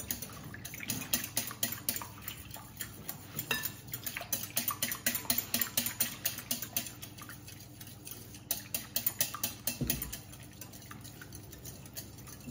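Fork beating whole eggs in a glass mixing bowl, the metal tines clicking rapidly and unevenly against the glass, several times a second. The clicks thin out near the end.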